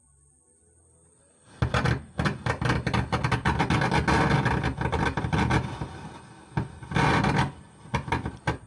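Stranger PBT 701 amplifier, just powered on, putting out a loud, harsh crackling, scratchy noise through its speaker, starting about one and a half seconds in, even with master volume, bass, mid and treble all turned down. The noise breaks into a few separate bursts near the end. It is a fault that the repairer traces to the amplifier's bass-treble tone-control board.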